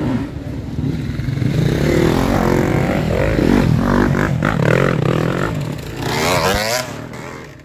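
Enduro dirt bike engines revving hard on a muddy hill climb, their pitch rising and falling with the throttle. The revs climb sharply about six seconds in.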